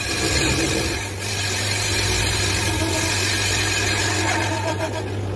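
Metal lathe running, its cutting tool boring the inside of a motorcycle brake drum: a steady hum with a continuous hiss over it.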